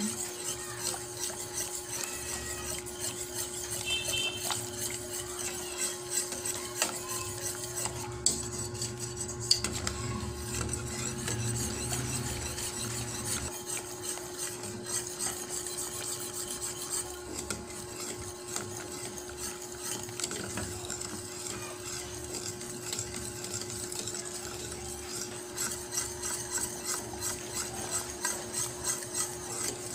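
A utensil stirring a thickening cornstarch-and-peanut sauce in a pan, with continual small scraping clicks against the pan. A steady hum runs underneath.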